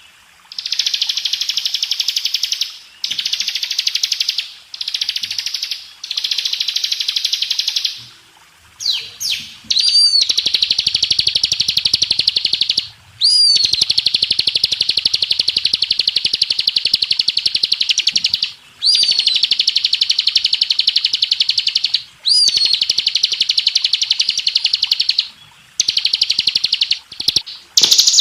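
Bar-winged prinia (ciblek) singing its rapid trilled 'ngebren' song: a run of high, fast, buzzy trills lasting several seconds each with short breaks between them, most opening with a quick up-and-down whistled note.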